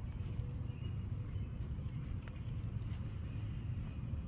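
Low, fluctuating rumble of wind on the microphone, with a few faint ticks and rustles.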